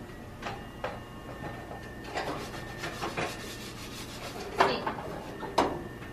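Handling noise: a handful of light knocks and clicks, with rubbing scrapes between them, over a low steady background.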